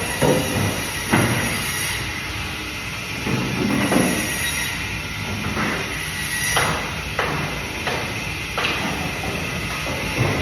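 Band saw running with a steady high whine while cutting fish, with irregular knocks of the fish against the saw table every second or so.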